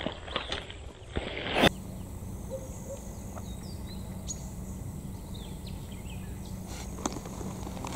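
Quiet outdoor ambience: a steady low hum with a few faint bird chirps. It comes after about a second and a half of rustling and handling clicks that stop abruptly.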